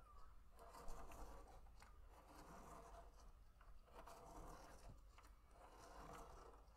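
Faint scratching of a felt-tip pen drawing on paper as a clear plastic spirograph gear is rolled around its toothed ring, swelling and fading about every one and a half to two seconds, with a few light clicks from the plastic.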